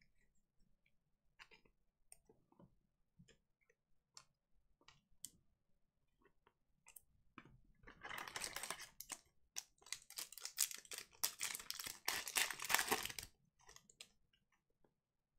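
Light scattered clicks of cards and packs being handled, then, about seven seconds in, the foil wrapper of a Prizm Premier League Breakaway trading-card pack being torn open and crinkling for about five seconds.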